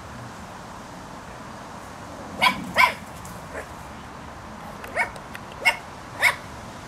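Dog barking in short, sharp yaps during play: two in quick succession, then three more about a second apart.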